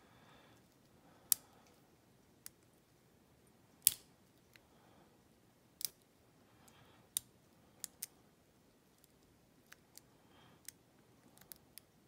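Lock pick and tension wrench working the wafers of an old Yale wafer padlock: a dozen or so sharp metallic clicks at irregular intervals as the wafers are raked and set, the loudest about four seconds in.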